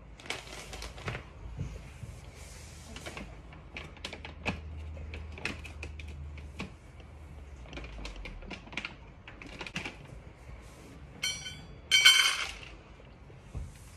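Scattered taps and clicks, then about eleven seconds in a loud rattling burst of about a second and a half: dry dog kibble being poured into a metal or hard bowl.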